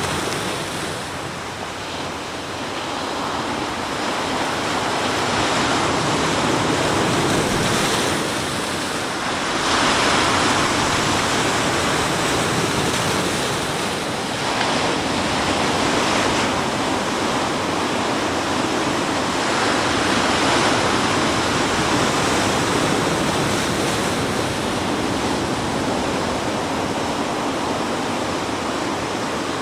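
Sea waves breaking and washing onto the shore in a continuous surging rush, swelling louder every few seconds as each wave comes in.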